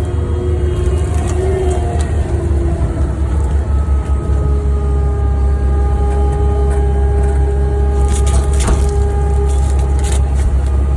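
Skid steer's engine running steadily, with a deep rumble and a steady whine whose pitch shifts in the first couple of seconds and then holds. A few sharp knocks come about eight seconds in.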